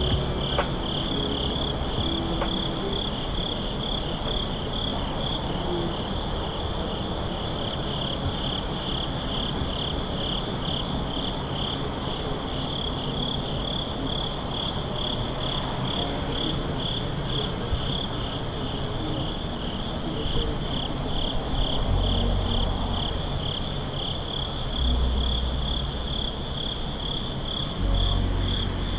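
Crickets chirping in a steady, pulsing high-pitched trill, a few pulses a second, with low rumbles now and then in the second half.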